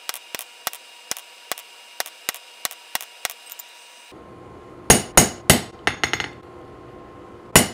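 A hammer striking a small chisel held against a mild-steel tong jaw on the anvil, cutting grooves so the jaws can grip round and square stock. The strikes are light and even, about three a second, each with a ringing tone. After a short pause past the middle comes a run of about half a dozen harder blows, and the striking starts again near the end.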